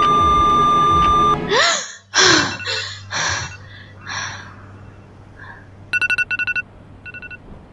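A steady high electronic tone cuts off abruptly about a second and a half in. A woman gasps and then breathes heavily several times. From about six seconds in, quick electronic beeps sound in short rapid trills.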